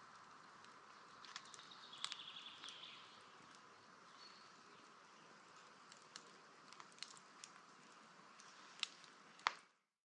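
Wood campfire embers crackling faintly: scattered sharp pops and snaps over a steady soft hiss, with the loudest snap near the end just before the sound cuts off.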